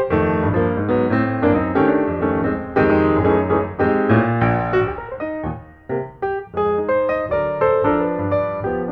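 Background piano music, a quick stream of notes.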